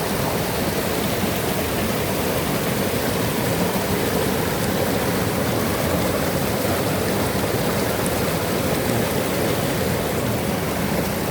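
River water rushing steadily over rocks, a constant even rush.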